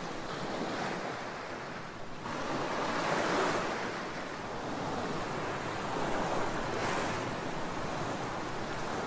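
Water from a hose running into a Concrete Genie floor grinder's water tank: a steady rushing that grows louder about two seconds in and surges briefly again near seven seconds.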